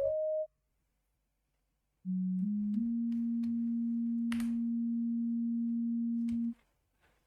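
Pure electronic beep tones from a keyboard tester as keys are pressed: a short high tone stops half a second in, then about two seconds in a low tone starts, steps up twice and holds for about four seconds. Faint mechanical key clicks run through it, with one sharper click near the middle.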